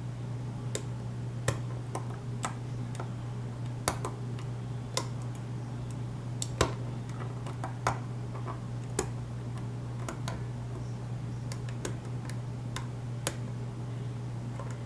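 Lock pick and tension wrench working the pins of a pin-tumbler challenge lock with a Schlage keyway: sharp metallic clicks at irregular intervals, a dozen or so, as the pins are lifted and set.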